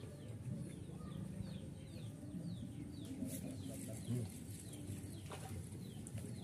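A bird calling over and over with short falling notes, two or three a second, over steady low background noise.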